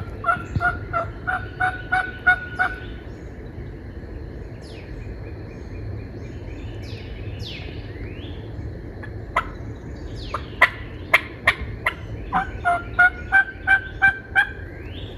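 Hen-style turkey yelping: a run of about ten evenly spaced yelps, then a few sharp cutts, then a second run of yelps near the end, calling to a tom. Small songbirds chirp faintly in between.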